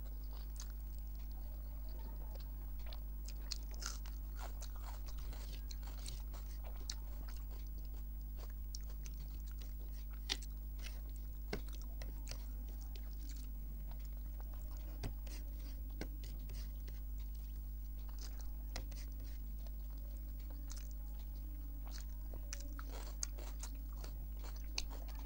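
A person eating a rice meal close to the microphone: scattered wet mouth clicks and smacks of chewing, with a few sharper crunches, over a steady low hum.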